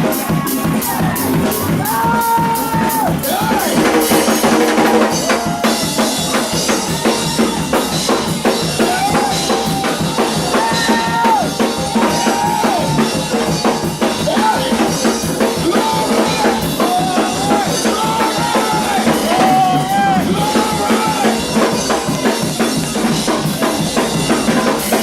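Up-tempo church praise-break music with a steadily driving drum kit and a sliding melody line over it.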